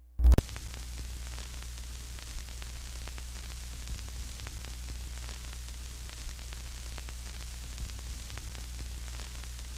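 Steady static hiss over a low hum, with faint scattered crackles, like the surface noise of an old recording.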